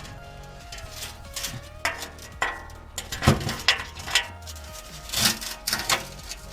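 Irregular metallic clinks and clatter of tools and hardware being handled and sorted through.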